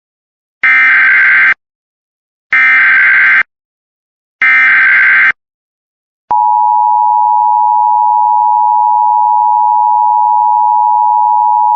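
Emergency Alert System header: three short bursts of buzzing SAME data tones, each just under a second and about two seconds apart, then about six seconds in a steady high attention tone starts and holds. The sequence marks the start of a new alert, here a local area emergency message.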